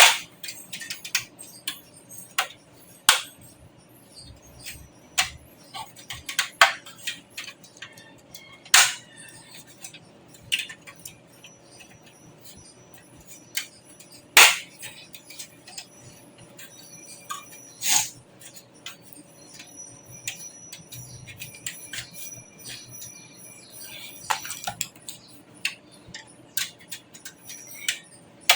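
Computer hardware being handled: irregular sharp clicks and clinks of parts against a metal PC case, with a few louder knocks.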